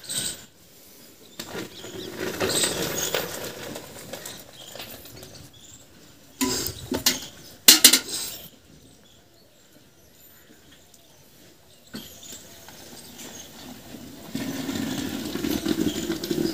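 Steel milk cans, a lid and a dipper knocking and clinking as they are handled, with the sharpest clanks about two-thirds of the way through. Near the end, milk is poured from a steel bucket into a steel milk can, a steady rushing splash.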